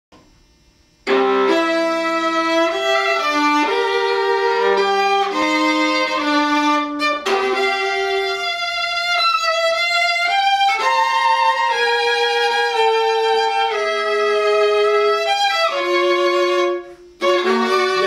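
Solo viola played with the bow: a slow melodic passage of held notes, some sounded two at a time, starting about a second in, with a short break near the end before the playing resumes.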